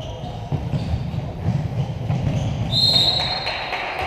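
Handball referee's whistle: one short shrill blast about three seconds in, fading out after it, over a low rumble of hall noise. Scattered sharp claps and crowd voices follow.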